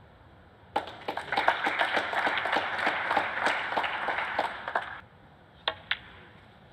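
Audience applauding a potted black in a snooker match for about four seconds. Near the end come two sharp clicks of a cue striking the cue ball and the ball hitting another.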